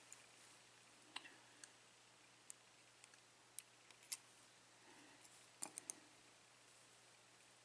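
Faint, scattered light clicks of small metal lock pins and parts being handled on a bench, ending in a quick run of three clicks about two-thirds of the way through.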